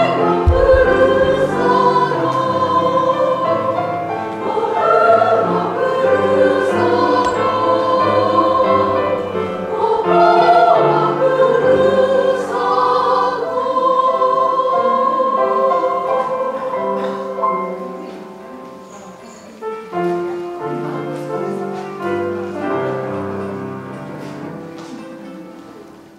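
Women's choir singing with piano accompaniment; it grows noticeably quieter for the last several seconds.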